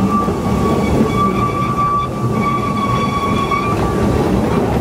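Narrow-gauge steam train running, with a steady high-pitched squeal held at one pitch over the rumble of the train.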